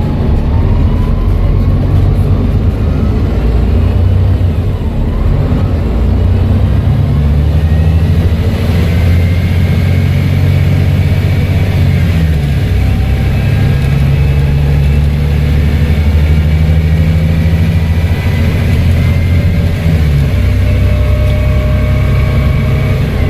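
Volvo B7TL bus's turbo diesel engine running under load through its Voith automatic gearbox, with a thin turbocharger whistle rising slowly in pitch above the engine drone. The engine note changes several times, about 6, 12 and 20 seconds in.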